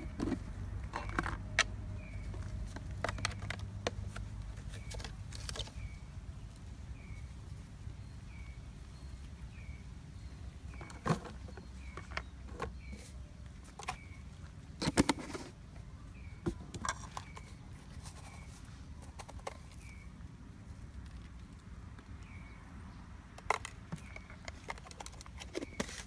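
Scattered small clicks and knocks of plastic containers, lids and a spoon being handled during food preparation, the loudest about 11 and 15 seconds in. A faint high chirp repeats about once a second in the background.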